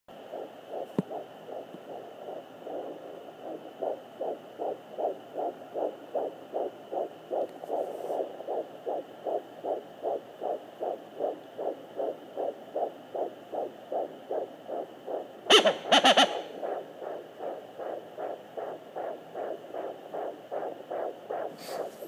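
Handheld fetal Doppler picking up a 12-week fetus's heartbeat: a fast, even pulse of about two and a half beats a second over the device's faint steady hiss. A brief loud crackle breaks in about two-thirds of the way through.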